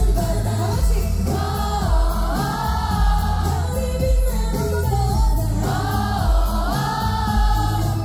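K-pop song performed live over a concert sound system: women singing into handheld microphones over a backing track with a steady beat, in two sung phrases.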